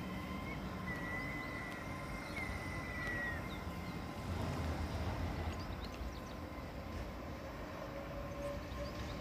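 Great Western Railway Class 800 train pulling out of the station and running away along the track: a steady low rumble with a high whine over the first three seconds or so.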